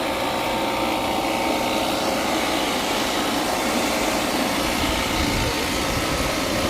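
Refrigerant recovery machine running steadily with a motor hum and whine, pulling the last of the R22 charge out of the system.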